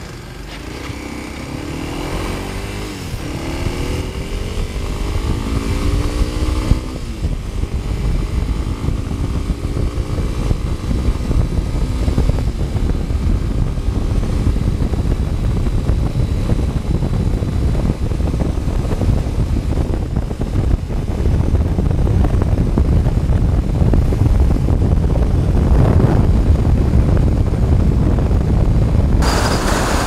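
Motorcycle engine pulling away and accelerating, its pitch climbing and falling back at each gear change over the first several seconds. Then steady riding at speed, with heavy wind rumble on the microphone that grows louder.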